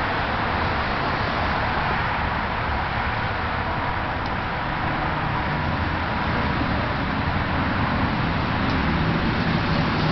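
Steady outdoor background noise: a constant, even hiss over a low hum, with no distinct events.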